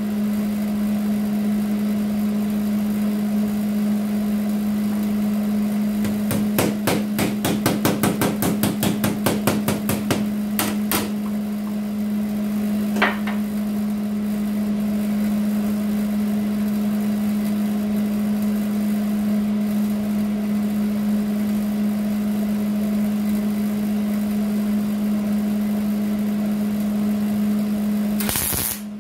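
Sheet-metal work on a Jeep Wrangler's steel patch panel over a steady low hum. About six seconds in there is a fast run of sharp clicks or taps, about five a second for some five seconds, then a single metallic ping. Near the end comes a half-second hiss of MIG welding arc.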